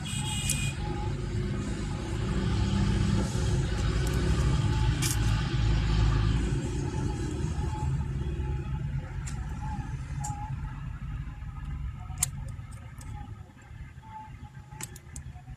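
Low vehicle rumble that swells over the first few seconds and fades away in the second half, with a few sharp clicks.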